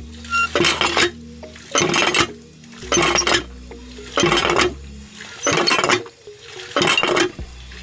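Hand pump being worked by its lever: a short scraping clank on each stroke, about six strokes, roughly one a second.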